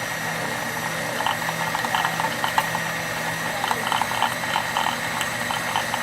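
Sewing machine motor running under the foot pedal, spinning the bobbin winder as thread winds onto the bobbin: a steady hum with a fast, irregular rattling of clicks.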